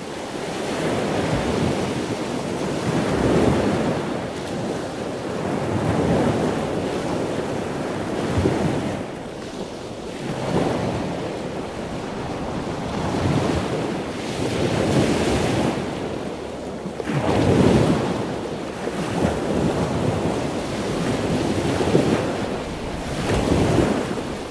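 Ocean waves, a steady rushing of water that swells and falls every few seconds.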